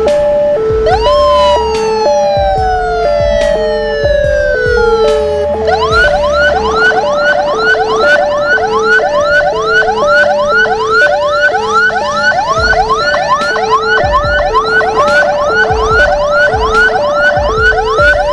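Electronic emergency sirens: a steady two-tone hi-lo wail runs throughout. Over it a second siren falls in one long sweep, then switches about five seconds in to a fast yelp of rising chirps, about three a second.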